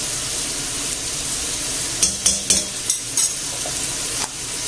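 Chicken carcasses frying in olive oil in a stainless steel pot, a steady sizzle. About halfway through come several sharp clicks and taps, a few in quick succession.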